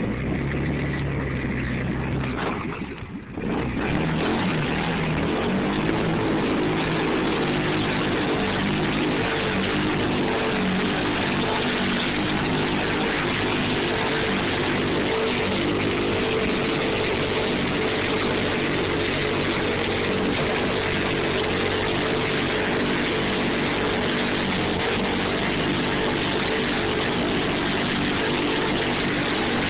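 Polaris 500 ATV engine running in deep mud: a lower note for the first few seconds, a brief drop, then revved high and held steady at high revs for the rest of the time.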